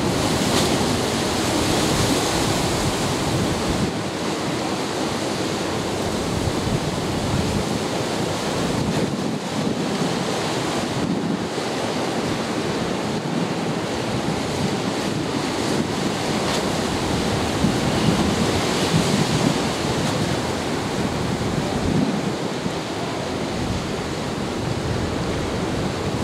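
Ocean surf breaking and washing against the rocks of an inlet jetty, with wind buffeting the microphone. It is a steady rush that swells now and then.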